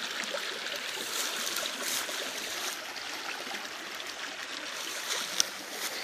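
Small forest stream running over shallow riffles: a steady rush of flowing water, with one short click about five seconds in.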